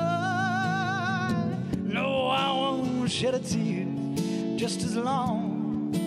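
Male voice singing over a strummed acoustic guitar: a long held note with vibrato, then shorter sung phrases.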